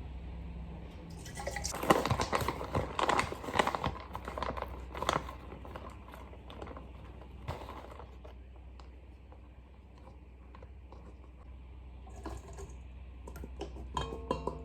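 Kitchen handling sounds of mixing muffin ingredients in a bowl: a busy run of irregular clicks, taps and rustles for a few seconds, then scattered quieter ticks, and another short flurry near the end.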